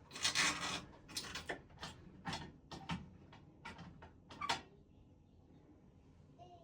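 Hand-fitting of shower valve parts: a short scraping sound, then a string of about ten sharp clicks and taps that stop after about four and a half seconds.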